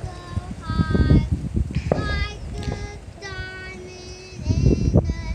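A child singing a tune without clear words, with one long held note partway through. There are low thumps near the end.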